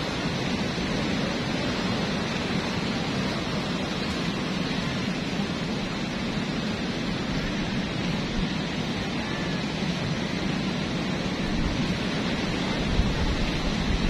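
Steady rushing wind, with low gusts buffeting the microphone near the end.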